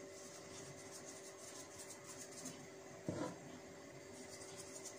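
Faint soft rubbing of a pastry brush spreading oil over rolled-out chapati dough, over a faint steady hum. One brief louder sound about three seconds in.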